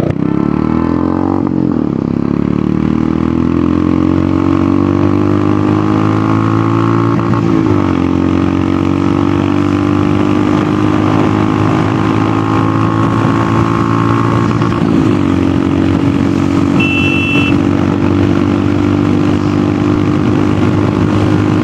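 Royal Enfield Hunter 350's single-cylinder engine through an aftermarket megaphone exhaust, with a bassy note, pulling hard under acceleration. The note climbs in pitch and drops back at upshifts about two, eight and fifteen seconds in, then holds nearly steady at speed.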